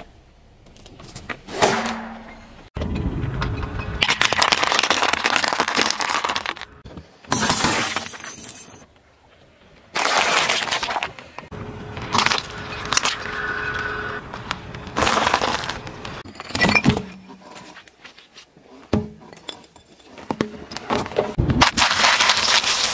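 A car tyre rolling slowly over objects and crushing them one after another: a balloon, tomatoes and hollow plastic toy ice-cream cones. The sound comes as a run of separate loud cracking and crunching bursts with short gaps between.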